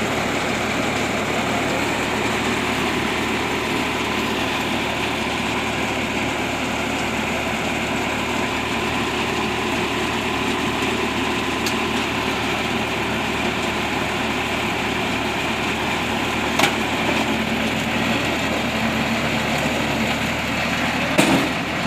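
Tractor-driven Vikas 235 baler running steadily under engine power, with a couple of sharp clicks partway through and a brief knock near the end.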